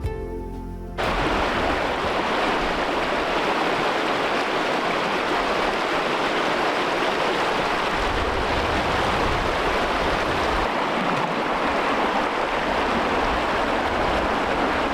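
A creek running high with spring meltwater, a steady rush of water that starts about a second in as plucked-string music cuts off.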